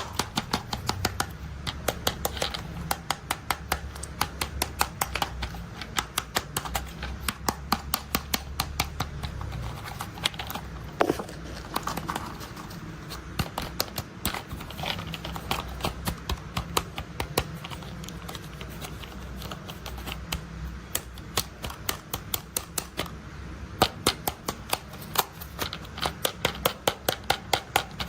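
Plastic toy construction vehicles being handled, with runs of sharp clicks several times a second over a low rumble.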